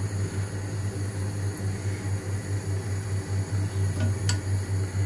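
A steady low mechanical hum that pulses quickly, with one light click about four seconds in.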